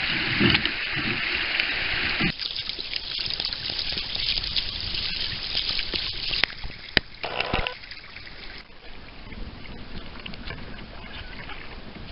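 Shallow river rapid rushing loudly around a kayak, cutting off abruptly about two seconds in. Calmer water follows, with scattered splashes and a few sharp knocks.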